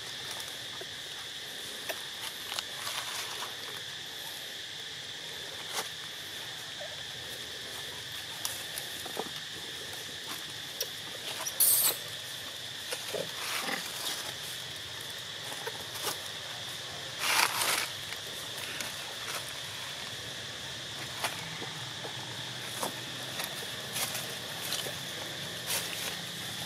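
Baby long-tailed macaque giving scattered short squeaks, with two louder brief shrill cries a little before halfway and again about five seconds later. A steady high insect drone runs underneath.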